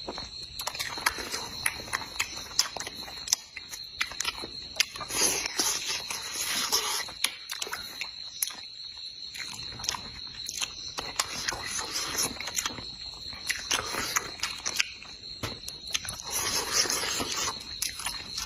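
Close-miked eating: chewing and lip smacking, with many sharp clicks, over a steady high-pitched insect drone.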